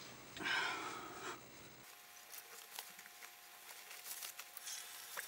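Clothing rustling as a flannel shirt is swung on and pulled over the shoulders: one louder swish of fabric about half a second in, then lighter rustles and small clicks.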